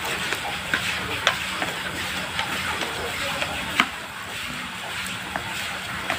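Crumbly ground-fish bait mix being rubbed and mixed by hand in a plastic tray: a steady gritty rustle with scattered sharp clicks against the tray.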